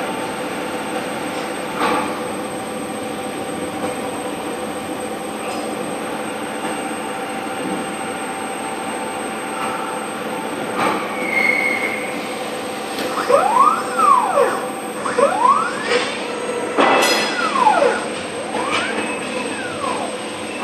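CNC machine's motors running during a slow automatic tool change. A steady hum with a few clicks, then, past the middle, four whines that each rise and fall in pitch.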